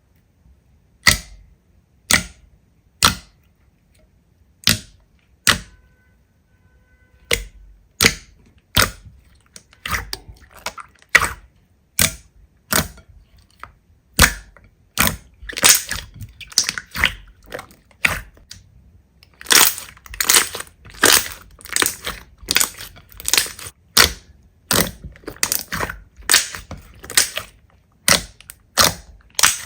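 Slime being pressed and squeezed by hand, giving sharp crackling pops, about one a second at first and coming faster and denser in the last third.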